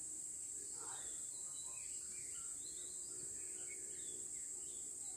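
Forest ambience: a steady, high-pitched insect drone from crickets or cicadas, with scattered short bird chirps over it.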